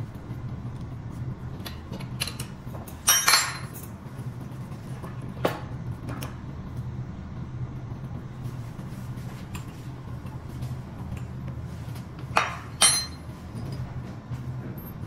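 Metal parts and tools clinking and knocking as an electric scooter's front suspension is handled during repair: a loud cluster of clanks about three seconds in, a single knock a couple of seconds later, and another loud cluster near the end, over a steady low hum.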